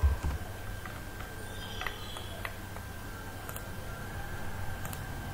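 Steady low electrical hum with a faint high whine from the recording setup, a soft low thump at the very start, and a few faint, scattered clicks of a computer mouse.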